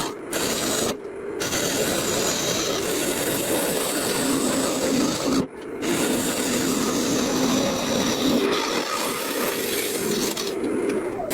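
Wood being smoothed by hand with an abrasive tool, a continuous rubbing and rasping in long strokes, broken by short pauses about a second in, near the middle and near the end.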